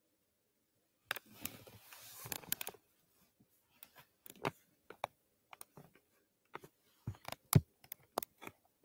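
Rustling for under two seconds, then a string of irregular light clicks and knocks, the loudest knock near the end.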